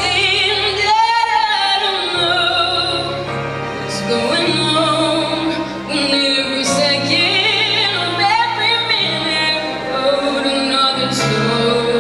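A girl singing a solo song into a microphone, her held notes wavering with vibrato, over an instrumental accompaniment.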